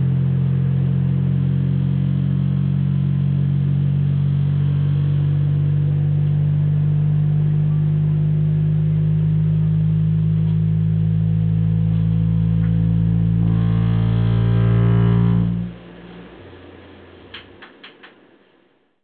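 A low, droning bass chord from a large bass speaker with a pan of water on it, held steady for about fifteen seconds and then cut off suddenly. A fainter low hum lingers briefly, with a few soft clicks before it goes quiet.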